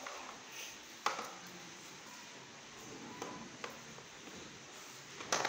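A long-handled plastic broom knocking and brushing on stone steps: a few sharp taps, about a second in, twice around three seconds in, and again near the end.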